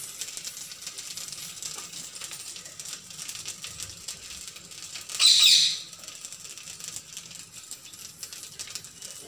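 Tempering of mustard seeds, cumin, curry leaves and dried red chillies crackling and sizzling in hot oil in a kadai, a steady hiss full of small pops. About five seconds in, one louder hiss lasts about half a second.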